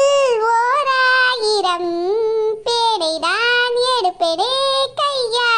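A high-pitched voice singing a Tamil song melody without accompaniment, in long held notes with vibrato that slide up and down, with brief breaks between phrases.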